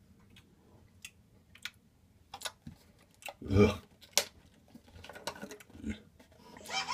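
Scattered light clicks and taps, more frequent in the second half, with one short vocal sound about three and a half seconds in.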